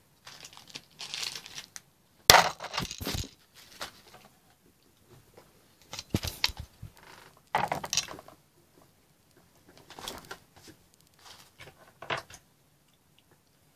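Crinkling, tearing and clattering of things being handled on a desk, in short irregular bursts, the loudest a little over two seconds in.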